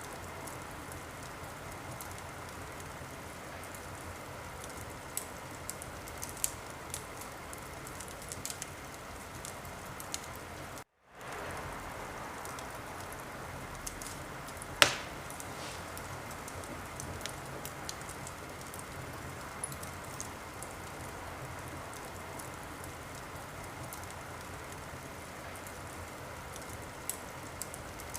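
Wood fire in a fireplace crackling: a steady hiss with scattered small pops and one much louder pop just past the middle. The sound cuts out completely for a moment a little before that pop.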